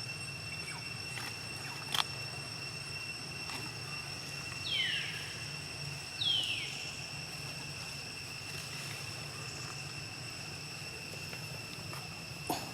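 Outdoor rural background with a steady high buzzing and a low hum, broken by two short animal calls that fall quickly in pitch, about five and six and a half seconds in, and a couple of sharp clicks.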